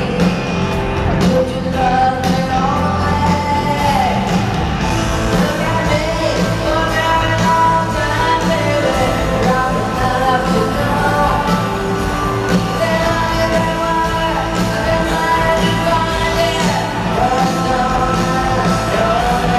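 Live rock band playing with a female lead vocalist singing sustained, bending phrases, amplified through a stadium sound system.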